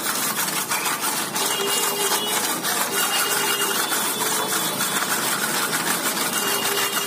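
Small electric hand mixer running steadily, its metal beaters whirring through sugar and butter in a glass bowl as the sugar is creamed in.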